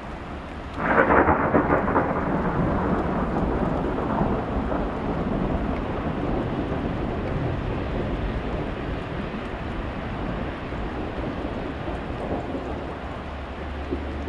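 Thunder: a sudden loud clap about a second in that rumbles on and slowly fades over many seconds, over a steady hiss of falling rain and sleet.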